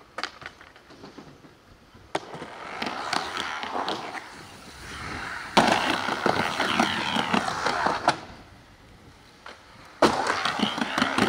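Skateboard wheels rolling on a wooden mega ramp, a loud rough rumble that comes in suddenly about halfway through and again near the end, after a few sharp clicks of the board at the start.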